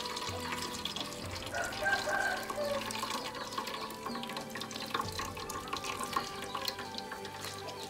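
A thin stream of raw soy milk pouring from a squeezed cloth bag of ground soybeans, splashing steadily through a metal strainer into a pot of milk.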